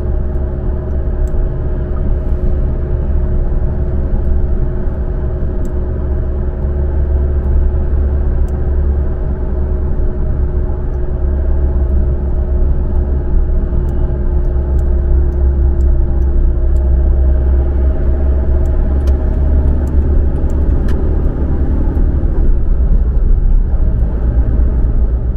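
Road noise heard from inside a car's cabin while driving at highway speed: a steady low rumble of tyres and engine with a faint continuous hum.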